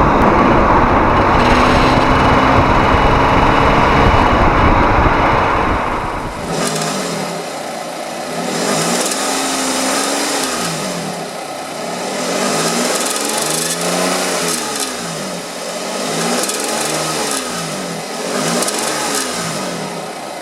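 A loud, steady rushing noise for about six seconds. Then the Nissan Moco's 660 cc three-cylinder engine is blipped four times, its pitch rising and falling, with a rattly, hissing buzz that swells with each rev. This is the engine-synchronised rattle traced to the bulge in the front exhaust pipe.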